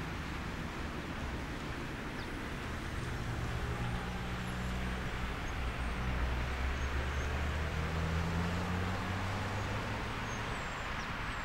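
Distant Victorian Railways R class steam locomotive R711 working hard as it pulls away with a loaded train: a steady noise of its exhaust that grows louder in the middle.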